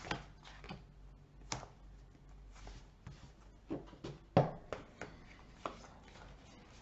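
Sleeved playing cards handled on a tabletop: scattered light taps and soft rustles as opening hands are drawn and sorted, with the loudest tap about four and a half seconds in.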